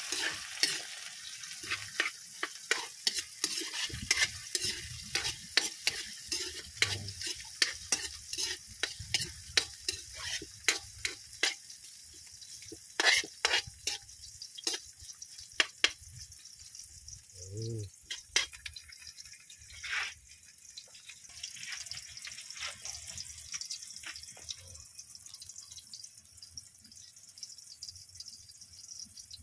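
Garlic, onion, ginger and tomato sizzling in hot oil in a steel wok, with a metal ladle scraping and clicking against the pan in quick strokes. The stirring thins out after about sixteen seconds and the sizzling goes on alone.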